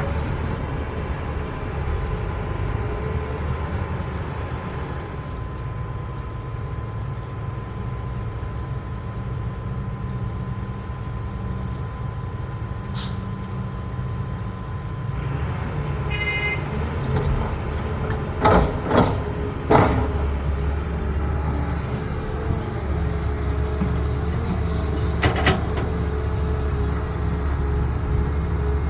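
A CAT excavator's diesel engine running steadily with a deep rumble, with a cluster of three loud bangs about two-thirds of the way in and a lighter knock a few seconds later.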